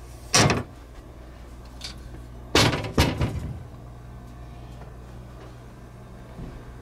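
Glass-paned wooden cabinet doors being shut: a sharp knock just after the start, then two more knocks close together about two and a half and three seconds in, over a steady low hum.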